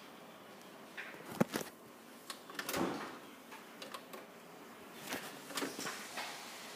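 Handling noise: irregular light clicks and soft knocks over a low room hiss, with a small cluster about three seconds in.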